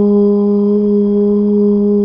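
A long, sustained 'oo' (the 'U' vowel) chanted as a meditation tone, held steady at one low pitch with no break.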